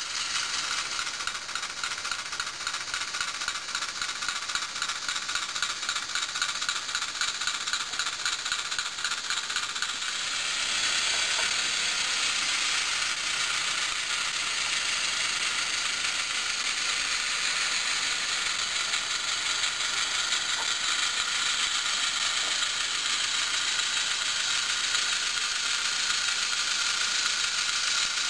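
Small H0 scale model locomotive running slowly along the track, its motor and gears making a steady whirring rattle with a fine rapid ticking, getting louder about ten seconds in.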